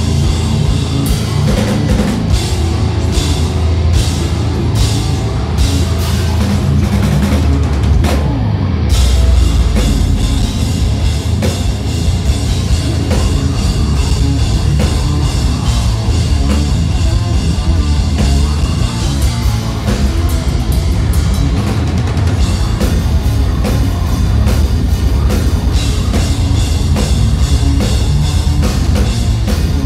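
Deathcore band playing live at full volume through a club PA: distorted guitars and bass over heavy drums with cymbal strikes, and vocals. About eight seconds in the cymbals drop out briefly before a heavy low hit.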